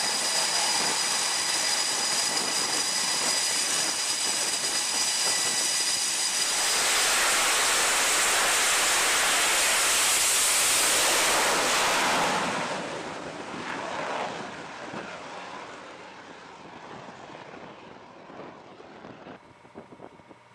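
Fighter jet engines running at high power on a carrier deck, with a steady high whine. About six seconds in comes a louder, even roar of a jet launching in afterburner, which dies away over the following seconds.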